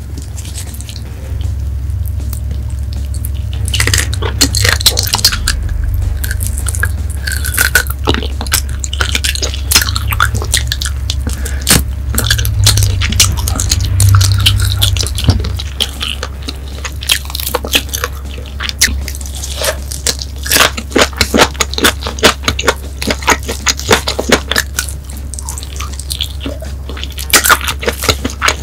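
Close-miked eating of bone-in spicy grilled chicken feet: wet chewing, sucking and biting with many short sticky clicks and crackles, over a steady low hum.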